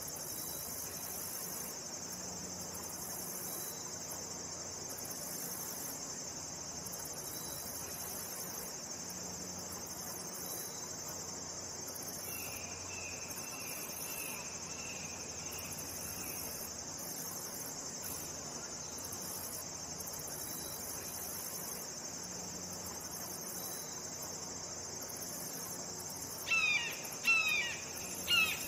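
Steady high drone of insects. A short run of faint high chirps comes around the middle, and near the end three loud, downslurred red-shouldered hawk calls ring out in quick succession.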